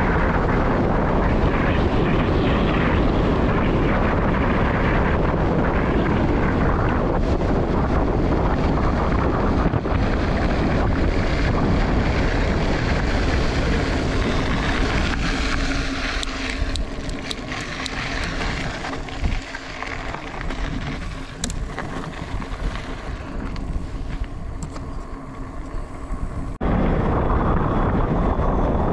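Wind buffeting a moving microphone: a loud, steady rush with heavy rumble. Past the middle it eases for a while and a steady low hum shows through, then it comes back abruptly at full strength near the end.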